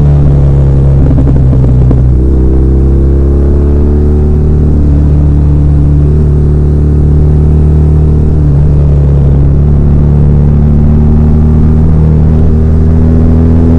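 BMW R1200R's air/oil-cooled boxer twin engine running loud and deep, its pitch holding mostly steady with a few small rises and dips in revs.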